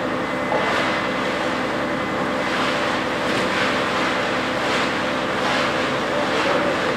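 A concrete pump's engine running steadily under repeated scraping of shovels and hand floats spreading wet concrete.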